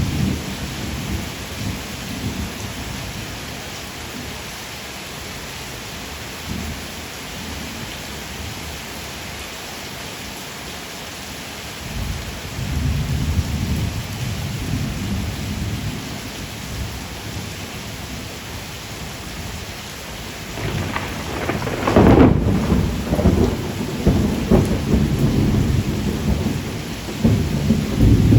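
Steady rain with thunder rumbling low, growing stronger about halfway through, and a louder thunderclap about three-quarters of the way in that rolls on to the end.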